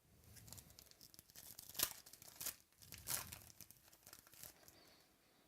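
Plastic trading-card pack wrapper being torn open and crinkled, with sharp crackles about two and three seconds in.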